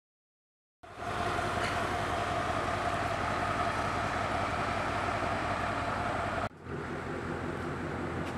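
Mercedes-Benz G63 AMG's twin-turbo V8 idling steadily through an aftermarket Innotech performance exhaust, starting abruptly about a second in. About six and a half seconds in it cuts to a Ford Mustang GT's V8 idling through a Roush performance exhaust, deeper and steady.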